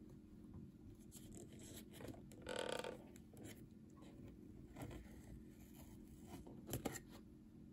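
Foil-lined paper lid of an instant noodle cup being peeled back by hand: faint scratchy rustling, with a louder rustle about two and a half seconds in and a few short crackles near the end.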